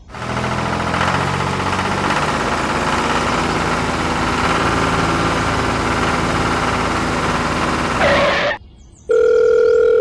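An engine running steadily for about eight seconds, then cutting off suddenly. Near the end a steady beep sounds for about a second.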